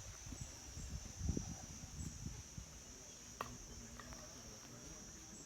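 Insects droning steadily in a high pitch, with faint low thumps in the first couple of seconds and one sharp click about three and a half seconds in.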